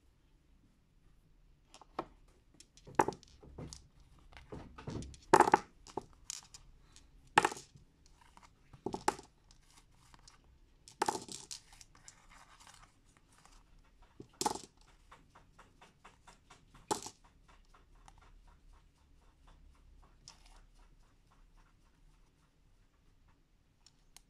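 Rune stones clicking and knocking against one another and on the cards as they are gathered up by hand: irregular single clacks a second or two apart, loudest about five seconds in.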